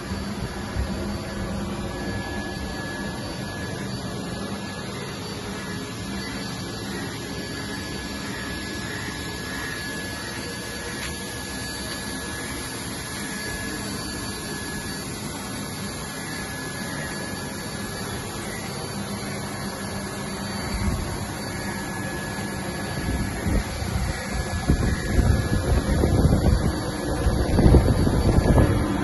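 Steady mechanical hum with a faint high whine that comes and goes. In the last third, louder uneven rumbling comes in.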